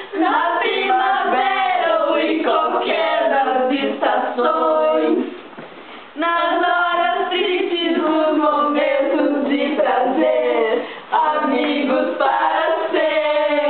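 A group of girls singing together without accompaniment, in sung phrases with a pause of about a second about five seconds in and a brief break later on.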